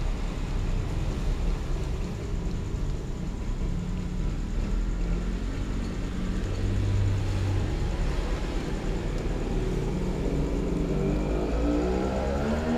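Steady low rumble of a motor vehicle engine, with a pitched sound that rises near the end.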